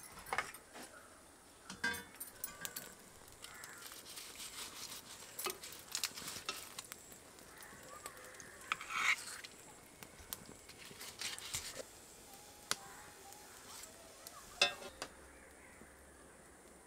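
Quiet cooking at a wood-fired hearth: scattered clinks of cookware and small crackles, with a brief harsher burst about nine seconds in.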